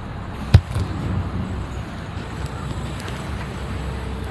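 Steady low rumble of a harbour ferry under way, with wind on the microphone and one sharp knock about half a second in.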